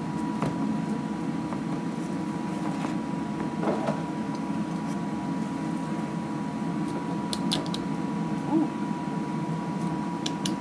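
Steady hum of kitchen ventilation with a thin constant tone, and a few light clicks of a cleaver slicing fried beef on a plastic cutting board.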